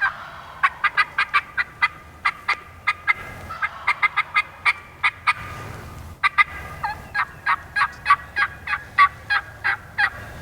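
Wild turkey calling in long runs of short, sharp notes, about four a second, with a brief pause about six seconds in.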